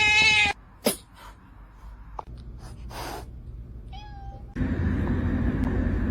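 Cat meowing: a long, drawn-out meow cuts off about half a second in, followed by a click and, about four seconds in, a short meow. After that a louder steady background noise sets in suddenly.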